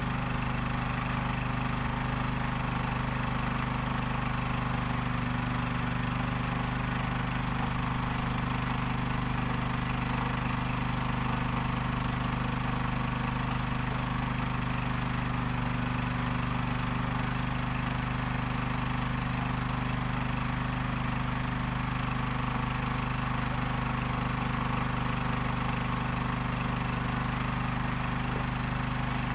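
Small Robin stationary engine running steadily at constant speed, powering a machine that separates gold from sand.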